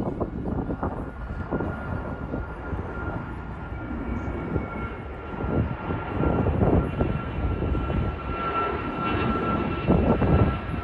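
Twin-engine jet airliner climbing out after takeoff: a continuous rough rumble of jet engines heard from a distance, swelling and fading, with a thin steady whine that grows stronger in the second half.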